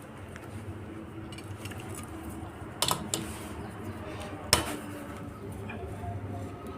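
Metal tools and engine parts clinking during hand work on a motorcycle's timing chain and sprockets: two sharp metallic clinks, about three and four and a half seconds in, over a faint low hum.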